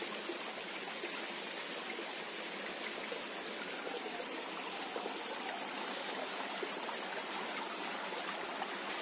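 Shallow forest stream running and trickling over rocks, a steady even wash of water.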